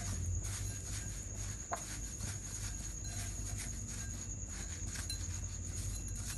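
Fingers pressing and patting dry breadcrumbs onto a batter-coated chicken finger in a glass bowl: soft, irregular crunching and rustling of the crumbs. A steady high-pitched whine and a low hum sit underneath.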